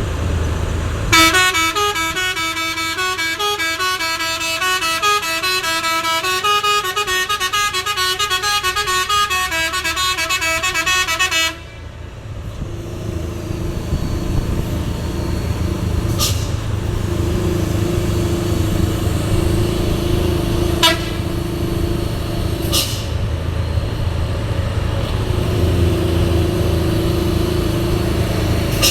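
Multi-tone 'telolet' horn playing a quick stepping melody for about ten seconds over a running truck engine. After it stops, the engine runs on with a steady drone, and three brief sharp sounds come in the second half.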